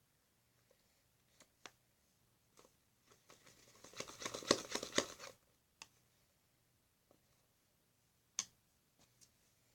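Fluffy slime being mixed and squished by hand: scattered small sticky clicks, with a denser run of squelching crackles for about two seconds in the middle and a sharper click near the end.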